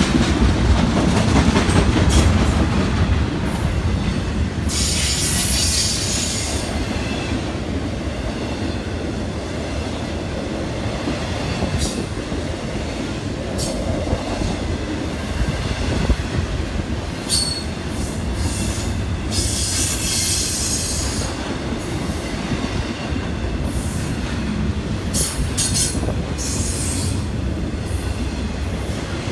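Intermodal freight train of highway trailers on flatcars rolling past close by: a steady rumble of wheels on rail, broken by several high-pitched squeals, one about five seconds in, another around twenty seconds in, and shorter ones near the end.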